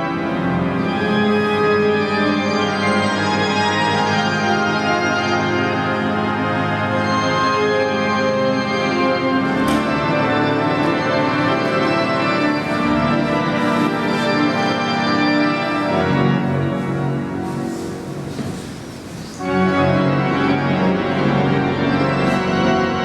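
Church pipe organ playing full, sustained chords. About sixteen seconds in it drops to a quieter, thinner passage for a few seconds, then the full chords return.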